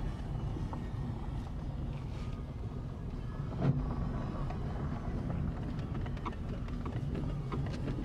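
Car running along a rough dirt track, heard from inside the cabin: a steady low rumble of engine and tyres, with one louder thump a little past the middle as it hits a bump.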